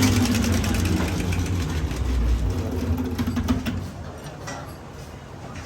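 Diesel engine idling steadily, then dying away about halfway through, leaving a few light clicks.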